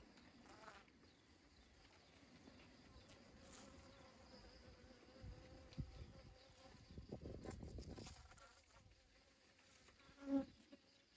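Honeybees buzzing faintly as they forage for pollen in a dragon fruit flower, a thin steady hum with a brief louder buzz near the end.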